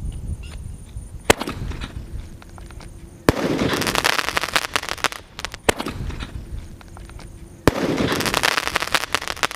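A sky shot aerial firework going off twice. Each time a sharp pop is followed about two seconds later by a bang and about two seconds of crackling from the bursting stars.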